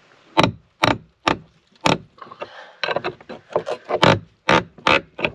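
Corroded nut and bolt through a wooden boat's beam shelf creaking and squeaking in short, sharp bursts as it is turned with a spanner. The creaks come about twice a second at first and faster in the second half.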